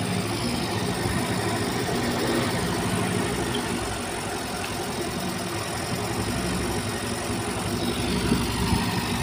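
Air-cooled single-cylinder scooter engine idling steadily, running on a freshly wired ignition coil and 6-pin CDI fed from a separate battery.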